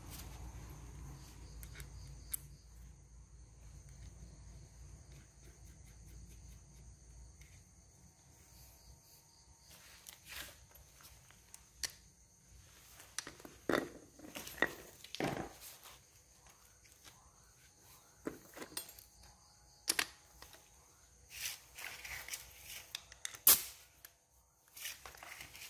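Scattered clicks and knocks of tools and engine parts being handled: sparse at first, busier from about thirteen seconds on, with one sharp loud click near the end.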